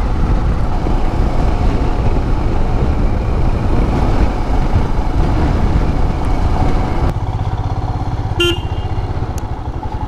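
Motorcycle engine running under way, with road and wind noise. About seven seconds in the sound cuts to the engine running slower and quieter, and a short horn toot sounds about a second later.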